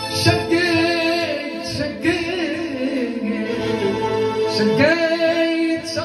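A singer performing into a microphone with a wavering, heavily ornamented melody, backed by a Korg electronic keyboard playing sustained notes over a low, steady beat.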